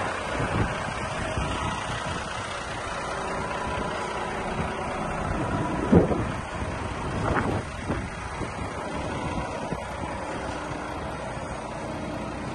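Volvo FM420 tractor unit's 13-litre six-cylinder diesel idling steadily, with a sharp knock about six seconds in and a softer one shortly after.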